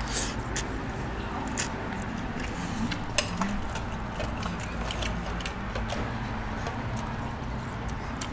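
Eating at a table: chewing, with a few sharp clicks of utensils or dishes, the sharpest about three seconds in, over steady restaurant background noise.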